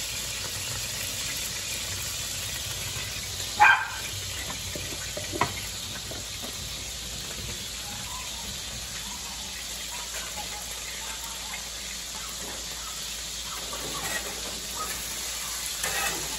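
Bison patties sizzling steadily in a cast iron skillet under a mesh splatter screen. A sharp clack sounds about three and a half seconds in, and a lighter one about two seconds later. Near the end, a metal spatula scrapes and clatters in the pan as the patties are turned.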